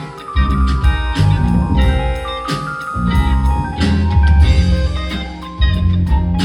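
Live band playing an instrumental jazz-fusion tune: guitar melody over drum kit and a heavy bass line.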